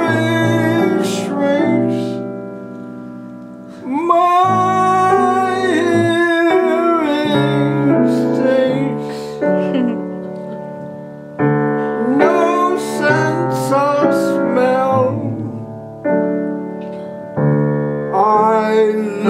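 Grand piano chords held and changed under a man's singing voice. The voice comes in three phrases that rise and fall in pitch, with quieter piano-only gaps between them.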